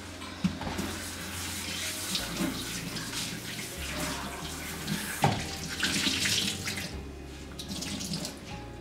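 Water running and splashing at a kitchen sink while a wet cloth is worked over a soapy countertop, with a sharp splash or knock about five seconds in as the loudest moment.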